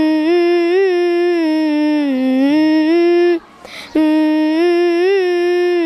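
A young child singing a wordless melody, humming or on an open vowel, in two long held phrases with a quick breath between them about three and a half seconds in.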